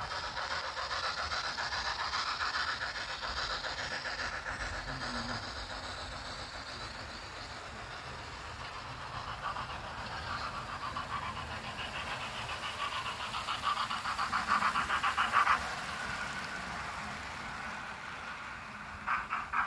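00 gauge model trains running on the track, a fast, even rattling clatter of wheels and motors. It grows louder about twelve seconds in and drops off suddenly about fifteen and a half seconds in.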